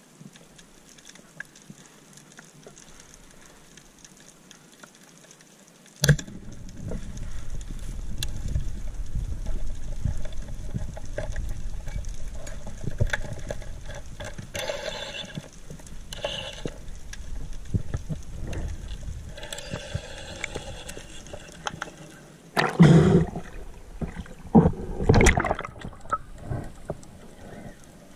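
Underwater sound picked up by a diver's camera: faint hiss with scattered clicks at first, then from about six seconds in a loud, steady rush of water over the camera as the diver swims. Several louder gurgling bursts come near the end.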